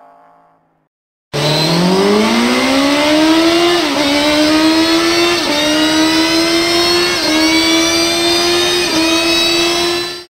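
Motorcycle engine starting suddenly and revving up steeply, then holding at high revs. The pitch dips briefly and climbs back four times before the sound cuts off abruptly near the end. In the first moment, the quiet tail of an earlier engine sound fades out.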